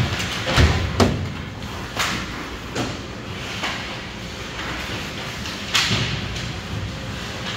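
Hockey play: a string of irregular sharp cracks and knocks of sticks and puck striking, about half a dozen hits, the loudest about a second in.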